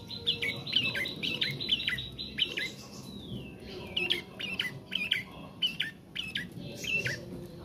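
Young caged prenjak practising its song: a run of sharp, quickly repeated downslurred chirps, about three a second, with a short break partway through.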